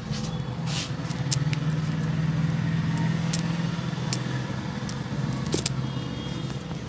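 A motor vehicle engine running with a steady low hum that swells for a few seconds from about a second in, with scattered sharp clicks over it.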